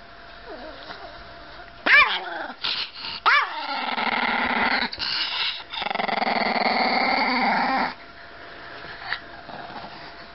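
A Chihuahua vocalising: two short, sharp yips about two and three seconds in, then a long, steady growling grumble lasting about four seconds that stops abruptly.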